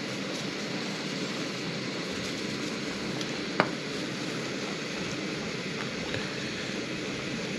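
Steady hiss of portable cookers burning and a pan of mushrooms cooking over them, with one sharp click about three and a half seconds in.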